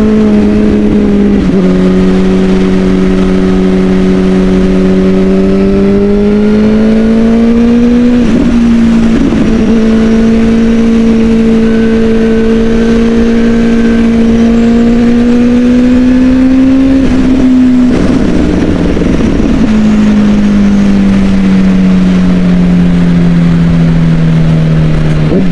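Kawasaki ZX-10 1000 cc inline-four sport bike engine running hard under load at highway speed, its pitch climbing slowly with brief breaks at gear changes. Over the last few seconds the engine note falls steadily as the bike slows.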